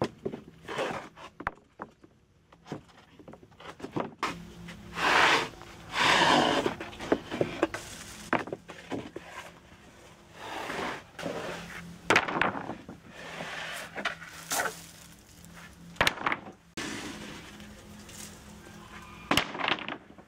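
Wooden planks being handled and stacked: boards scraping and sliding against each other, with scattered sharp knocks of wood on wood and footsteps.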